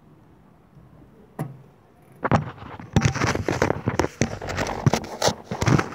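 Thin curved sheet-metal strip scraping, clicking and clanking against the chimney's mortar top as it is worked into place by hand: a single knock about a second and a half in, then a dense, irregular run of crackling scrapes and rattles from about two seconds on.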